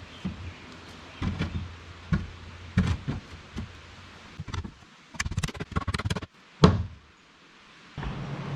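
Hammer knocking nails into wooden battens on board siding: scattered knocks, then a quick run of knocks about five seconds in and one loud knock just after.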